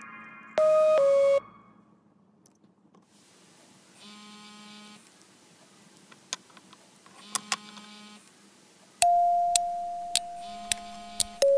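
Electronic chime sound effects: a short two-note beep, high then lower, about half a second in, then a longer two-note chime from about nine seconds in, its first note held and then dropping to a lower one. Between them come faint clicks of small scissors snipping pipe cleaner.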